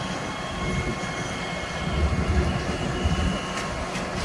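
Diesel locomotive approaching slowly; its engine rumble grows louder about halfway through, with a thin high squeal from the wheels on the curving track.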